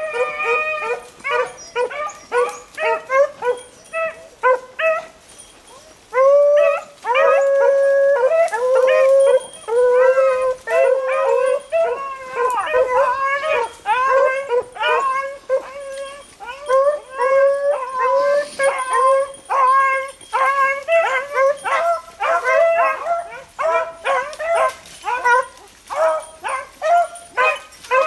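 A pack of beagles baying on a rabbit's trail, several hounds' voices overlapping in a steady chorus. The calls are scattered at first, then swell loud and continuous about six seconds in.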